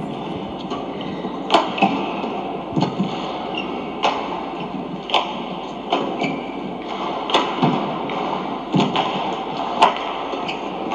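Badminton rally: a shuttlecock is struck back and forth with rackets, giving sharp hits roughly once a second, along with a few duller thuds from players' feet on the court, over a steady arena hum.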